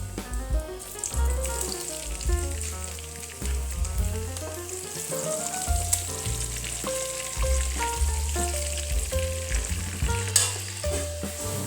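Background music with melody and bass notes, over a continuous sizzling hiss of food frying.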